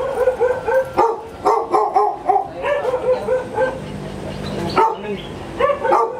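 Dogs barking in quick succession, several short barks a second, with more than one bark pitch overlapping.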